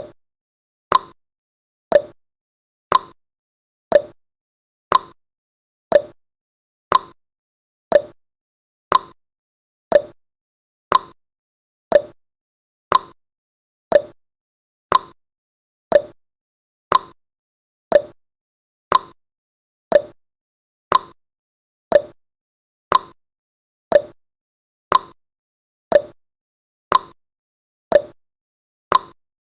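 Countdown timer's tick sound effect: one short click every second, evenly spaced, with silence between.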